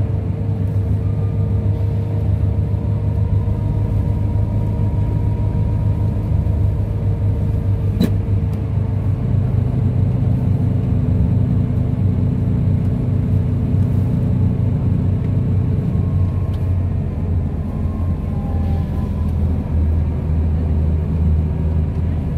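Scania K360's rear-mounted DC13 five-cylinder diesel heard from inside the coach's cabin while driving, a steady low drone with road noise. A single sharp click about eight seconds in.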